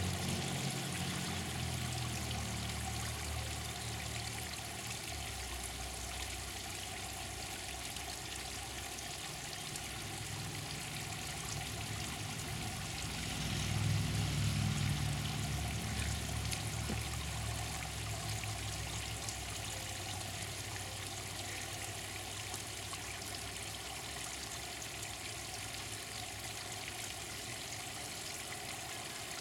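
Water from an inflatable play pool's sprayer falling steadily into the pool. A low rumble swells briefly about halfway through.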